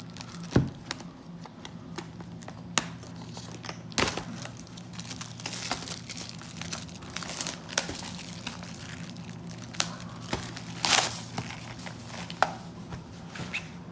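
Clear plastic shrink wrap being torn and peeled off a cardboard trading-card box, crinkling in irregular bursts with sharp crackles, one of the loudest about eleven seconds in.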